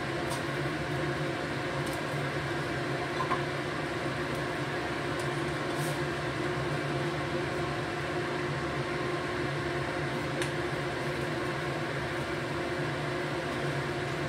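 A saucepan of fish-ball soup boiling on a gas stove, under a steady low hum and hiss; a few faint light clicks.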